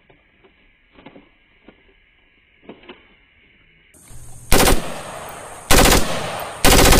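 Automatic rifle fire in bursts: a short burst about halfway through, another a second later, and a longer, louder burst near the end. Before that there are only faint scattered clicks and rustles.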